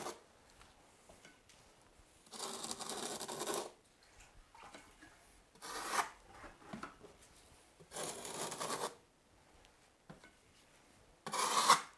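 Margin trowel scraping and smoothing mortar around a shower drain flange on a foam shower pan, in four separate strokes a few seconds apart, the first the longest.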